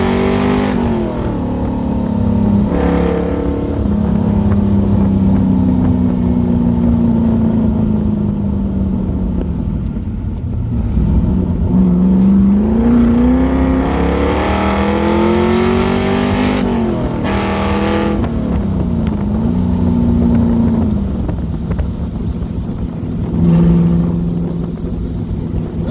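1969 Corvette's 383 V8 with side-mount exhaust accelerating on the road, the engine note climbing and then dropping at each upshift, several times over.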